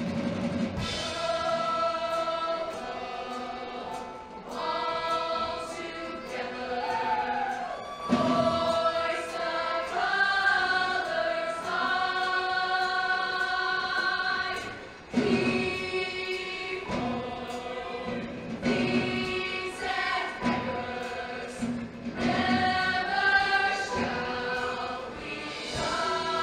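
Show choir singing in harmony, holding sustained chords in phrases a few seconds long with short breaks between them.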